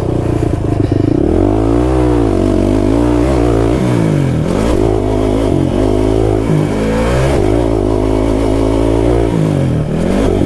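Kawasaki KFX 450R quad's single-cylinder four-stroke engine being ridden hard, revving up and down again and again as the throttle is worked.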